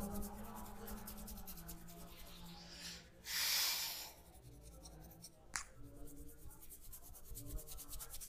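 Hands rubbing and kneading a head and hair in a head massage, a fine continuous scratchy rubbing. About three seconds in comes a louder hiss lasting nearly a second, and a little later a single sharp click.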